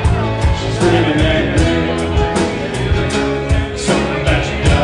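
A live band playing a country-rock song: acoustic guitar, electric bass and keyboard over a steady beat.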